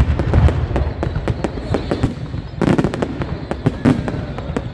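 Aerial fireworks display: a dense, continuous barrage of bangs and crackles with a steady low rumble underneath, and a louder burst about two and a half seconds in.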